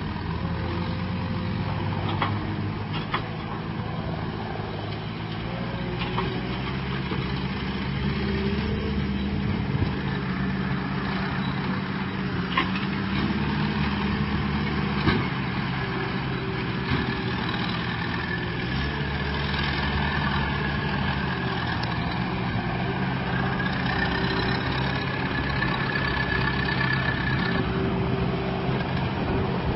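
Diesel farm tractor engine running steadily as it hauls two loaded bale trailers, its note shifting up and down a few times. A few short knocks are heard along the way.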